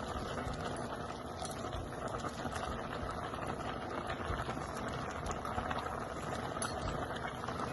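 A pot of water at a rolling boil with spaghetti in it, bubbling steadily.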